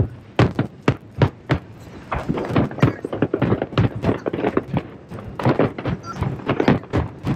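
Aerial fireworks shells bursting in quick, irregular succession, several sharp booms and cracks a second.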